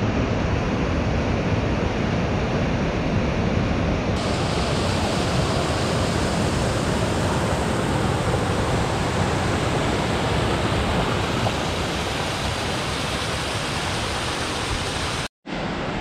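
Steady rush of a mountain waterfall and rocky stream. The sound shifts slightly at a cut about four seconds in and drops out for an instant near the end.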